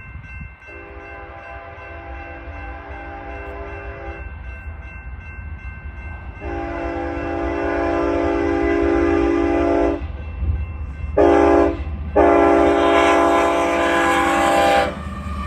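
Air horn of a lead BNSF GE Evolution-series locomotive sounding the grade-crossing pattern: two long blasts, a short one and a final long one, the first fainter and the rest louder as the train nears. A steady low diesel rumble runs underneath.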